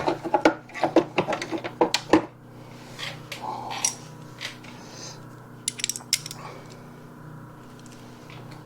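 Socket wrench and small metal tools clicking and clinking while small bolts are tightened. The clicks come thick and fast for about the first two seconds, then a few more follow later, over a steady low hum.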